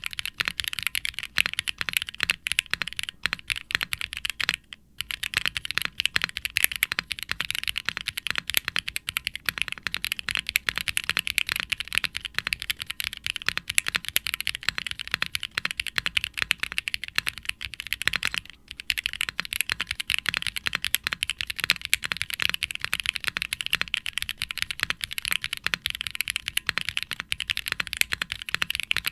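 Fast continuous typing on a custom mechanical keyboard with HMX Sonja linear switches (POM stems, nylon housings), an FR4 plate and GMK double-shot ABS keycaps in an undampened aluminium case: dense keystroke clacks with some case resonance. The typing briefly pauses twice, about five seconds in and near the middle.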